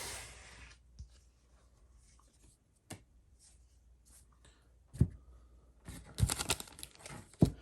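Trading cards and booster-pack wrappers being handled: a few sharp taps, the loudest about five seconds in and just before the end, with brief rustling in between.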